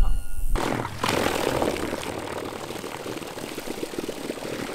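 Bow-mounted Garmin electric trolling motor churning shallow, weedy water: a steady rushing wash of water that starts suddenly about half a second in, after a brief low rumble.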